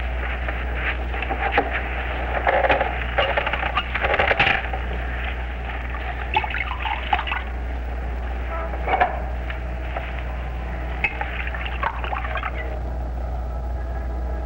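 A drink being poured: liquid splashing into a glass, with several sharp clinks of bottle and glass, over a steady low hum.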